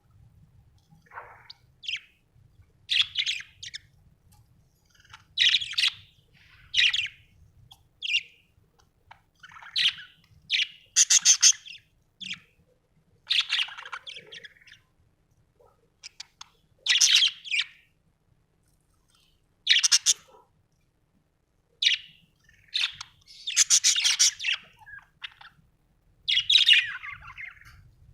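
Budgerigar chirping in short, high-pitched bursts with brief pauses between them.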